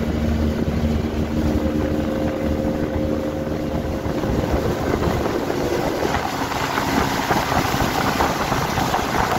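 Boat motor running steadily as a small boat travels at speed, with wind on the microphone and water rushing past the hull growing louder about six seconds in.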